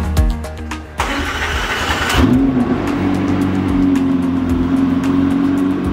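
McLaren Elva's twin-turbo V8 starting: a sudden burst about a second in as it fires, then settling into a steady idle. A tail of background music fades out at the start.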